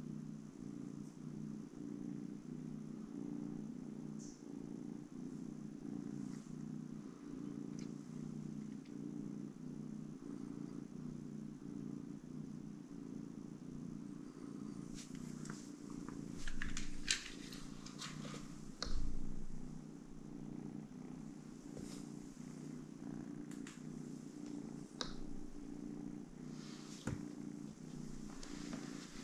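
Domestic cat purring steadily close by, with a few sharp clicks and rustles around the middle and a low thump a little after them.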